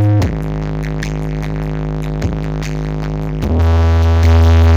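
Electronic dance music played loud through a large outdoor sound-system rig of line arrays and stacked subwoofers. Deep sustained bass notes slide in pitch at the start, and a heavier bass note comes in about three and a half seconds in.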